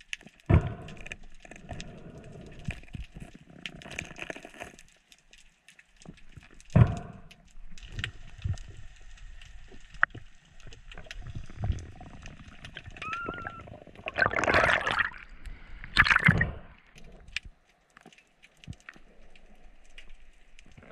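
Water sloshing and gurgling around a snorkelling diver's underwater camera, with scattered sharp knocks and clicks, and two louder rushing bursts a little past the middle.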